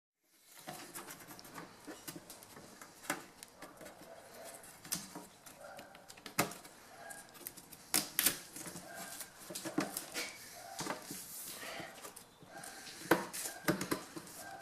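Irregular small clicks, taps and knocks of plastic laptop parts being handled and fitted during reassembly, with a few sharper clicks scattered through.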